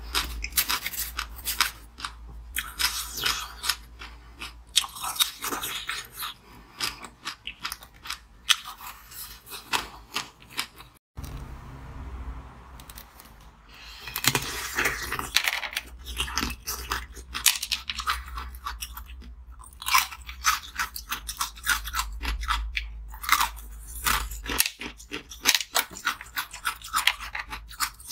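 Crunching and chewing of ice: mouthfuls of shaved ice at first, then, after an abrupt cut about 11 seconds in, bites through strawberries frozen inside balls of ice, with many sharp crunches.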